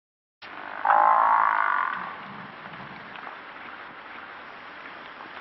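African buffalo (Cape buffalo) calling: one drawn-out call about a second in, lasting about a second.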